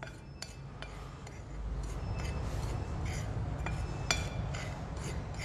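Metal fork stirring a dry flour and breadcrumb mix in a ceramic plate, giving a scatter of light clicks and scrapes against the plate. A low hum comes in underneath about a second and a half in.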